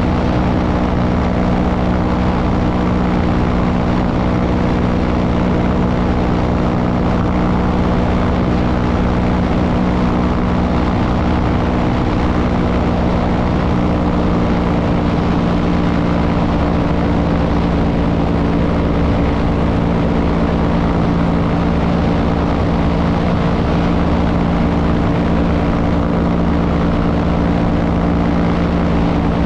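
Light aircraft's engine and propeller running steadily in cruise flight, holding one unchanging pitch under a constant rush of air.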